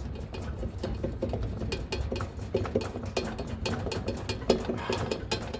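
Metal tools clicking, tapping and scraping on a washing machine's drive pulley as it is worked loose and pulled off the drum shaft. The clicks are many and irregular.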